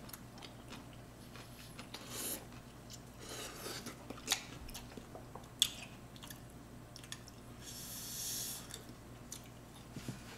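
A person chewing and slurping ramyeon noodles at close range, with a few short slurps and a longer one about eight seconds in. A couple of sharp clicks of utensils against the glass bowl.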